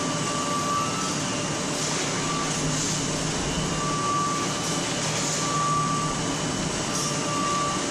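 Noodle-cutting machine and conveyor running with a steady mechanical noise and a low hum. A short high electronic beep sounds every second or two.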